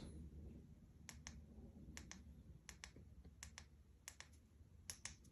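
Faint clicks of a small LED strip remote's buttons being pressed, in quick pairs about every three-quarters of a second, six times, switching through the light's modes.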